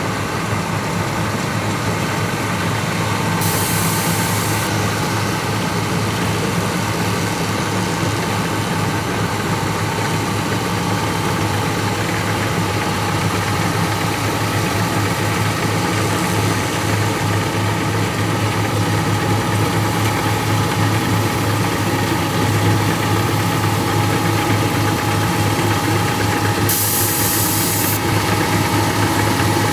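Diesel engine of a rice combine harvester running steadily, with two brief hisses, one about four seconds in and one near the end.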